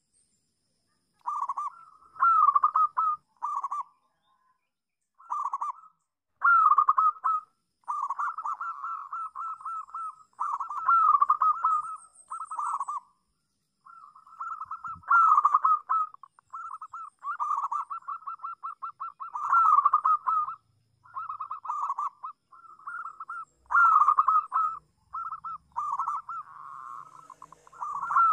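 Zebra dove (local perkutut) singing its rolling, staccato coo, phrase after phrase of quick notes with short pauses between.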